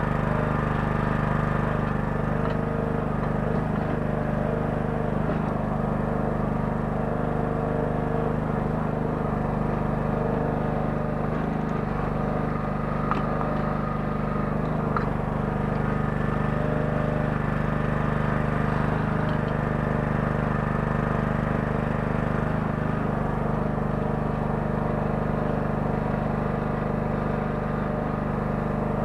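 Small 9 hp engine of a Kellfri towable mini excavator running steadily at constant speed, with a couple of faint clicks from the machine about halfway through.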